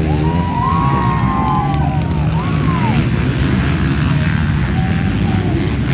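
Motocross dirt bike engines racing over a steady rumble, revving up and down in smooth rises and falls of pitch, strongest in the first three seconds.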